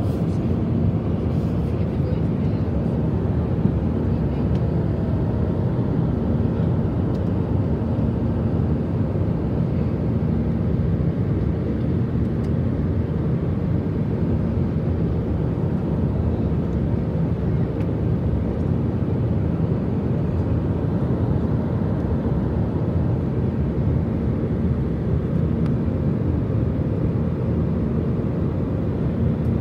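Jet airliner cabin noise in cruise, heard inside the cabin by the wing: turbofan engines and airflow make a steady, even low rumble with a faint constant hum in it.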